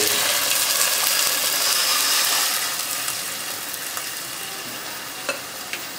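Boiled milk poured into a hot wok of fried vermicelli, sizzling and hissing as it hits the pan. The sizzle dies down gradually, with a couple of small clicks near the end.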